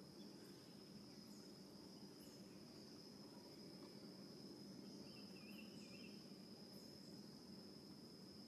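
Near silence with a faint, steady high-pitched insect drone of crickets held without a break over a low background hum, and a few faint short high chirps.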